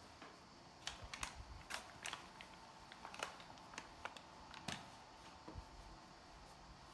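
Faint, irregular clicks and light taps of utensils and dishes being handled during home baking, a dozen or so scattered over about five seconds.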